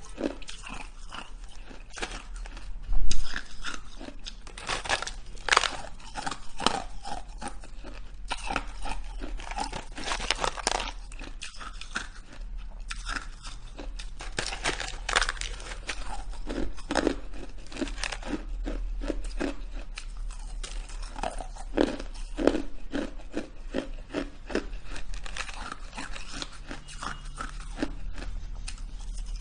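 A person biting and chewing shaved ice close up, in a run of irregular crisp crunches with one louder bite about three seconds in.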